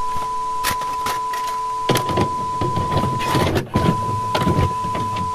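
Colour-bars test-tone beep, a steady high tone joined by a lower one for the first two seconds, broken up by glitchy static crackles and bursts of distorted noise; the tone drops out briefly about three and a half seconds in.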